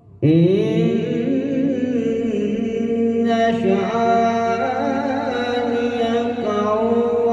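A man reciting the Quran in the melodic, drawn-out tilawat style, holding one long wavering note that starts a moment in and climbs higher about three seconds in.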